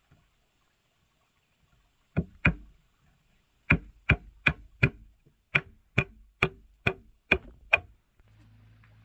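A tool striking wood or bamboo in a series of sharp blows: two, a short pause, then a steady run of about ten at roughly two and a half blows a second. A faint steady hum comes in near the end.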